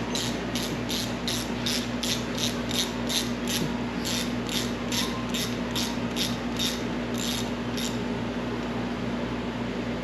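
Hand ratchet clicking in an even run of about three clicks a second, stopping about seven and a half seconds in, over a steady background hum.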